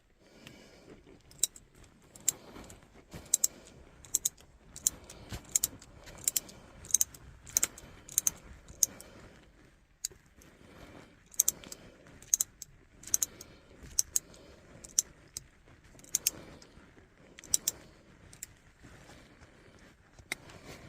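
Hand ratchet clicking as a screw is driven into a car's manual shift lever, sharp clicks coming about once every half second to a second, some in quick pairs, with short pauses between.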